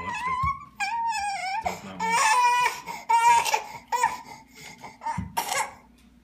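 A toddler vocalizing in a string of high, wavering squeals and cries, each under a second long, that die down near the end.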